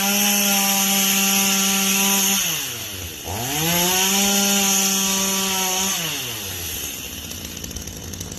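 Ryobi RY3716 37cc two-stroke chainsaw engine at full throttle. It drops back to idle about two and a half seconds in, revs straight back up and holds, then falls to idle again about six seconds in.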